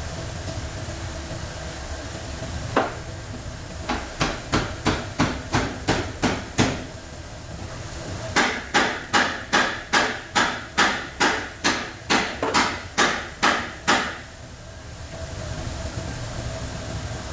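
Hammer blows struck in a steady rhythm while an electric motor is taken apart: a single blow, then a run of about ten quick strikes, and after a short pause a longer run of about sixteen strikes at about three a second.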